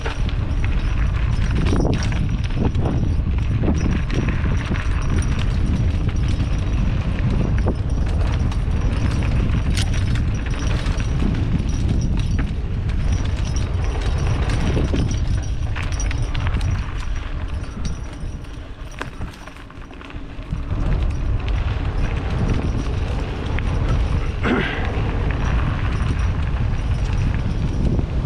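Wind buffeting the microphone of a mountain bike on a rough downhill trail, a steady low rumble, with the bike's rattles and knocks over the ground scattered through it. The rumble eases briefly about two-thirds of the way through, then comes back.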